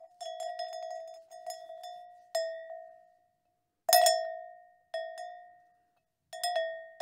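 A cowbell on a grazing cow clanking in irregular strikes, each ringing out and dying away, with short gaps; the loudest strike comes about four seconds in.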